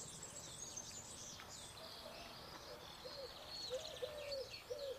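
Birdsong: small birds chirping and twittering in high notes. From about two seconds in, a lower bird call joins them, repeated in short arched notes about twice a second.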